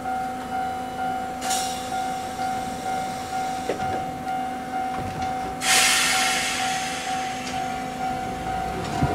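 A repeating electronic chime at a Toden Arakawa Line streetcar stop, pulsing about twice a second, under two bursts of air hiss from the streetcar about a second and a half in and again about five and a half seconds in. The second burst is the louder one and fades away over a few seconds.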